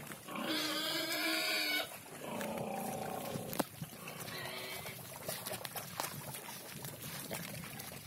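Pigs at a feed trough: one loud squeal lasting over a second, starting about half a second in, then a shorter, lower call, followed by scattered small clicks and wet slurping as they eat.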